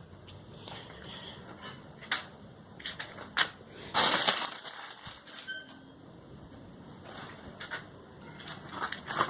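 A pile of paper envelopes catching fire and burning, with irregular crackles and snaps and a louder burst of noise about four seconds in.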